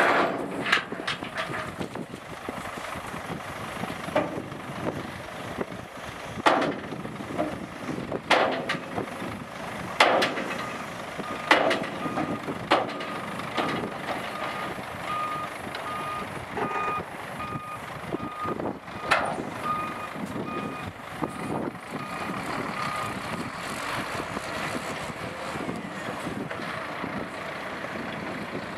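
Diesel engine of a Scania P380 8x4 tipper truck running, with a series of loud bangs from the steel tipper body and tailgate as the last of the gravel is dumped and the body comes down. Partway through, a reversing alarm beeps steadily for about twelve seconds, then stops.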